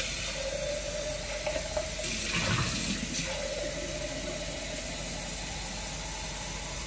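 Water running from a tap in a steady stream, filling a drinking glass; it starts and stops abruptly.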